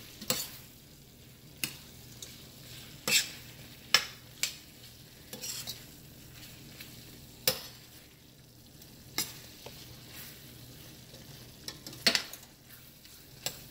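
A metal spoon stirring thick chicken curry in a stainless steel pot, with irregular clinks and scrapes against the pot every second or so. Under them is a faint sizzle of the stew cooking as the flour just added to thicken it cooks out.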